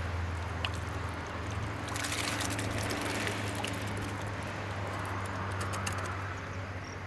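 Water trickling and splashing as a perforated scoop of common carp fingerlings is tipped into a water-filled cooler, in splashy spells about two seconds in and again near the end. A steady low hum runs underneath.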